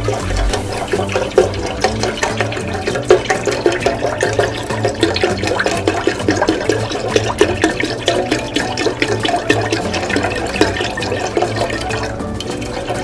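Chicken stock poured in a steady stream from a carton into a large stainless steel pot already part full of stock, splashing into the liquid.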